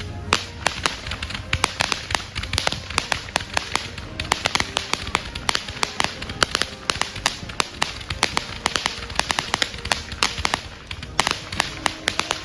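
Consumer fireworks going off in a dense run of sharp, irregular cracks and pops, several a second, with no let-up.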